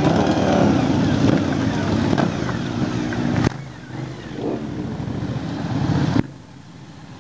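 Motorcycle engines running as bikes ride past one after another. The sound drops abruptly about halfway through, and again near the end.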